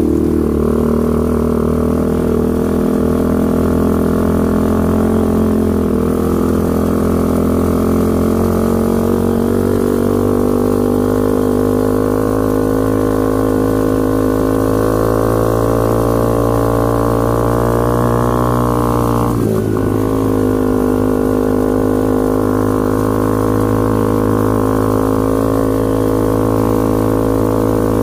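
The 125 cc ATV's new geared engine runs hard under load, its pitch climbing slowly for several seconds. About 19 seconds in the pitch drops abruptly, and the engine then holds a steady, lower note.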